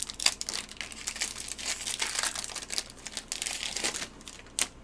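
Foil wrapper of a Pokémon booster pack crinkling as it is handled, a dense crackle for about four seconds that dies down near the end, then a single sharp click.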